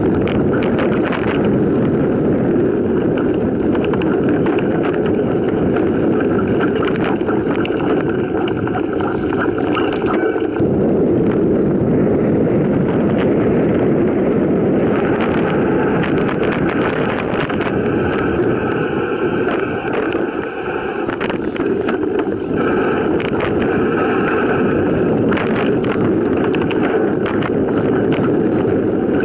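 Mountain bike riding fast down a forest dirt trail, heard up close from a camera riding along: a steady rumble of tyres over dirt and fallen leaves, broken by frequent clatters and knocks as the bike rattles over bumps.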